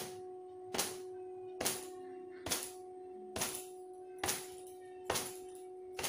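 A towel beating long wet hair: regular slaps a little under a second apart, over a steady faint hum.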